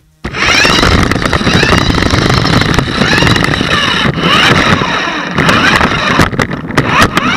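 Small electric motors of a toy RC-car battlebot whining loudly, the pitch rising and falling as it is driven and its weapon spins. Rattling knocks come near the end as it rams another toy car.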